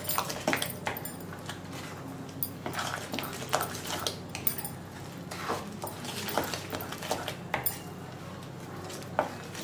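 Wooden spatula stirring a thick, sticky mixture of cooked grain and jaggery in a metal kadai, with irregular scrapes and knocks against the pan.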